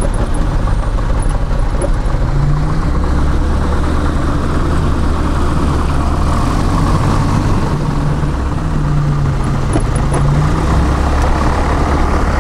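Robin DR400 light aircraft's single piston engine and propeller running at low power while taxiing, heard inside the cabin as a steady low drone.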